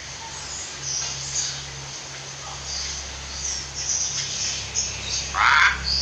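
Birds chirping in short, high, scattered notes over a low steady hum, with one louder, harsher call about five and a half seconds in.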